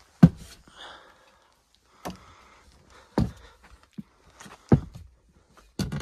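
Heavy thuds of someone crawling across attic joists and plywood, five knocks a second or so apart, with rustling of insulation and ductwork in between.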